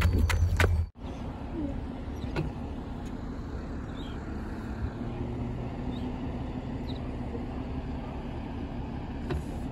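Footsteps on gravel for about a second, then, after a sudden break, a steady low engine rumble with a faint hum.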